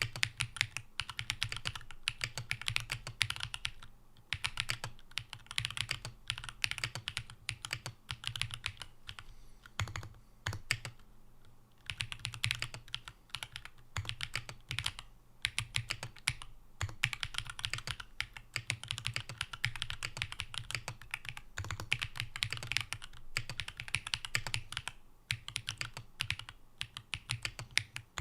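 Typing on a mechanical keyboard with Gateron Baby Kangaroo tactile switches, GMK Camping keycaps and an aluminum top-mount plate with PCB foam. Quick runs of keystrokes broken by short pauses, with a longer pause about ten seconds in.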